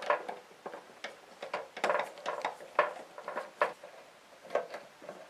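Light metal clicks and taps at irregular intervals, from small metal parts of a kerosene heater's wick mechanism being handled while a screw is worked into place.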